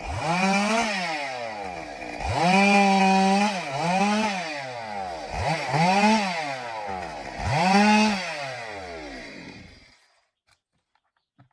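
Stihl two-stroke chainsaw revving up, holding high and dropping back, repeated about five times, then cutting off about ten seconds in.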